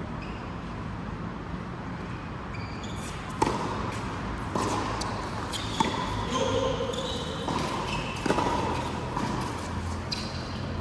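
A racket-sport rally in an indoor court: the ball is struck sharply several times, starting about three seconds in, with short high shoe squeaks on the court floor between the hits.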